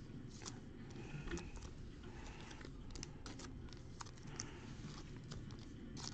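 Faint, scattered clicks and rustles of football trading cards being handled and flipped through by hand, over a low steady room hum.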